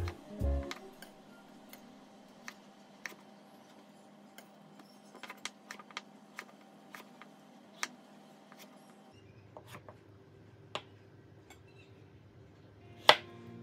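Kitchen knife slicing a peeled avocado on a wooden cutting board: quiet, irregular taps of the blade meeting the board, with one louder knock near the end.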